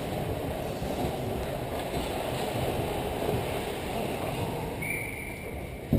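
Steady low rumbling ambience of an indoor ice rink during a hockey game, with a single sharp knock near the end.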